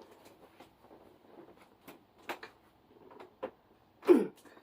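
Quiet handling sounds of a massage, with scattered light clicks and taps from hands working on the body. About four seconds in comes one short, loud vocal sound that falls in pitch, like a grunt.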